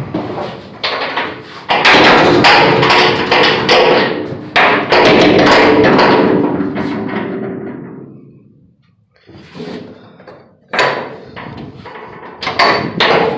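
Metal compartment gate of a Wilson livestock trailer being swung and banged: a loud clatter and rattle with a ringing that dies away over several seconds. Scattered knocks and latch clicks follow near the end.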